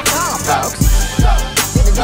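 Background music with a heavy beat: deep bass hits about twice a second under a looping melodic line.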